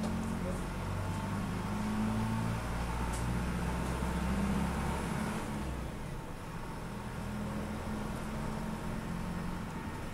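City bus engine and road noise heard from inside the cabin as the bus drives on and picks up speed. The engine pulls harder for the first five or six seconds, then eases off.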